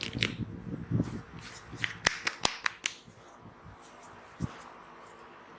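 Hands slapping and clapping in a percussive head massage: a handful of sharp slaps in the first three seconds, with a dull thump about a second in and another past the middle.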